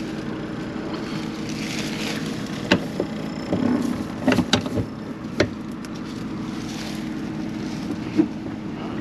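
Combine engine idling steadily, with several sharp metal clanks and knocks as the lopsided snout on the corn head is worked back into place.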